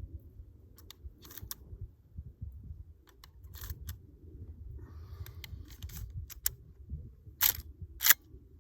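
Sharp mechanical clicks from a Henry Big Boy lever-action rifle being handled. There are scattered lighter clicks, then two louder clicks about half a second apart near the end.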